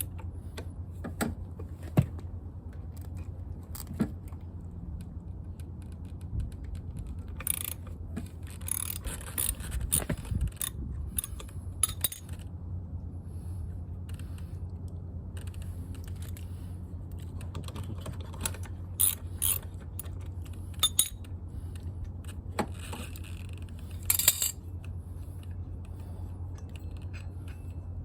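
Scattered sharp clicks and bursts of metallic clinking from small scooter CVT parts and tools being handled, over a steady low hum.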